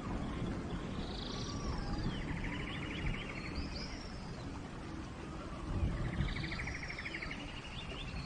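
Songbirds singing in a forest, the same phrase twice: high whistled notes followed by a buzzy trill, over a steady low rushing background.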